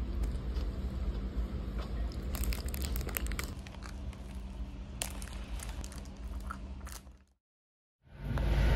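Crisp crunches of someone biting into and chewing a breaded, deep-fried croquette held in a plastic bag, with the bag crinkling. The sound cuts off abruptly about seven seconds in.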